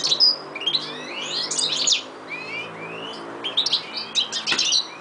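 European goldfinch singing: fast twittering phrases of quick chirps and short slurred notes, broken by brief pauses.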